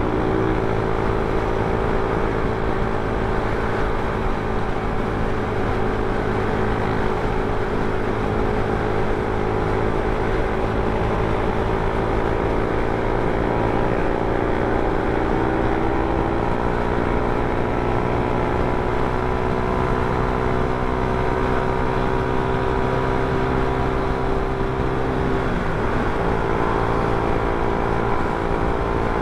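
Motor scooter engine running while cruising on a highway, with wind and road noise over the microphone. The engine note eases slightly lower partway through and dips briefly near the end before picking back up.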